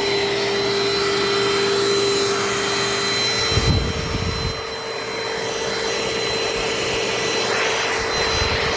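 Vacuum cleaner running with a steady motor whine while its brush head is worked over a couch, with a brief low rumble about halfway through.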